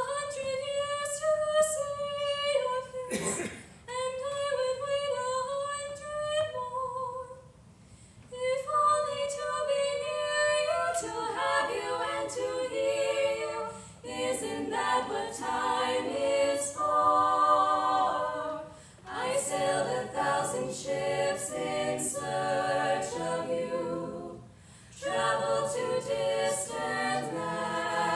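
All-female a cappella group singing a pop ballad. One female voice carries the melody alone at first, then the other voices come in with harmony chords about eleven seconds in.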